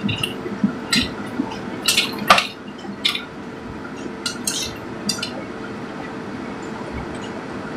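Metal clinks and taps of a strainer ladle and chopsticks against a stainless steel pot as noodles are scooped out, about eight sharp clinks in the first five seconds, over a steady hum.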